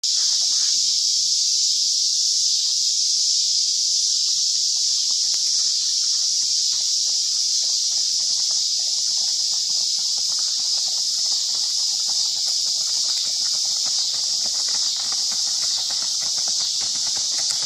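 Steady, high-pitched chorus of insects droning, with the hoofbeats of a Missouri Fox Trotter horse on a gravel lane coming in faintly and growing louder from about five seconds in as the horse approaches.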